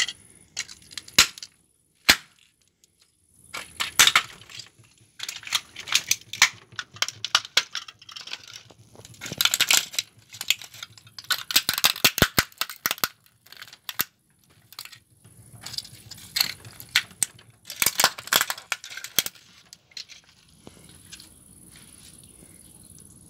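Plastic model truck pieces cracking, snapping and scraping under stamping feet in flip-flops, in spells of crackling with many sharp snaps. The crushing stops about twenty seconds in.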